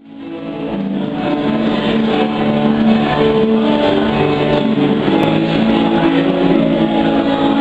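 Live band music led by an electric keyboard, rising from silence over about the first second and then playing steadily.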